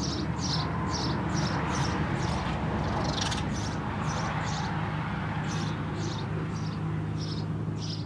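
Male house sparrow chirping: a string of short, high cheeps at about two a second, irregularly spaced, over a steady low rumble.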